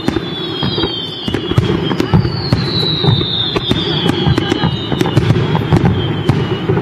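Fireworks display: many sharp bangs and crackles over a dense rumble of bursts, with several high whistles gliding down in pitch.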